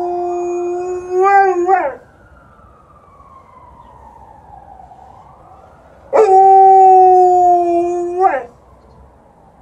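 Alaskan Malamute howling twice, each long, steady howl ending in a wavering break, in answer to a distant ambulance siren that wails faintly between the howls, slowly falling and then rising in pitch.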